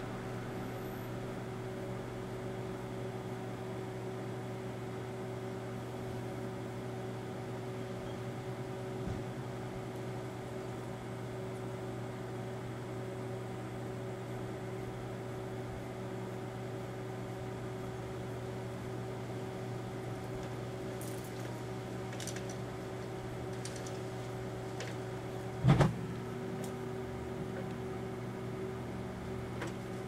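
Daewoo microwave oven running with a steady electrical hum while it heats an aerosol can of Dermoplast spray. Faint crackling clicks start in the last ten seconds, and a single loud sharp crack comes about 26 seconds in, as the overheated can begins to catch fire.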